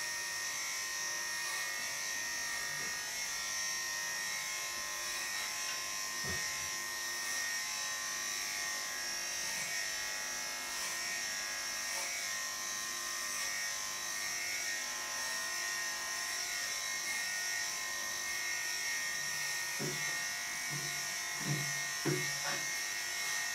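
Electric dog clippers running steadily with a constant high hum while shaving a bichon frise's coat, with a few short low sounds near the end.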